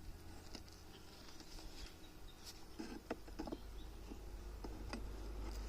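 Scattered light clicks and knocks from wooden beehive frames and boxes being handled, with a cluster about three seconds in, over a low steady rumble.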